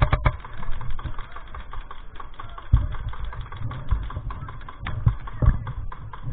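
Airsoft guns firing around the field: quick, irregular clicking shots, a tight cluster of sharper ones at the very start, with a couple of dull thumps.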